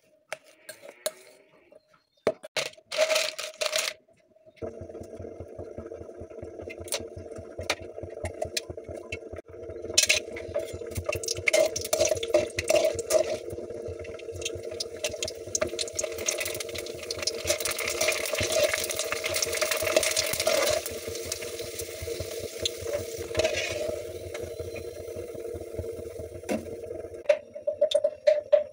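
Puris frying in hot oil in a metal wok: a dense sizzle and crackle over a low steady hum, growing louder in the middle and dying away near the end. Before it, a steel spoon clinks and scrapes in a steel bowl while stirring potato filling.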